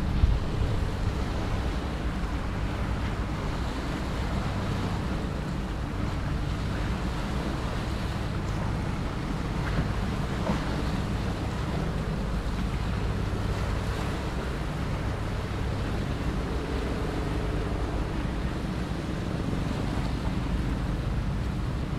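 Steady low drone of a tugboat's diesel engine pushing a loaded barge, heard from shore under wind rumbling on the microphone and the wash of water.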